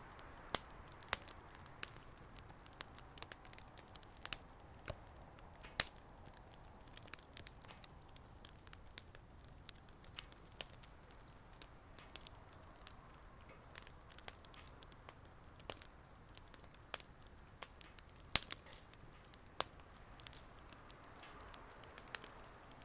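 Bonfire crackling, with irregular sharp pops and snaps of burning wood over a low steady hiss of flame.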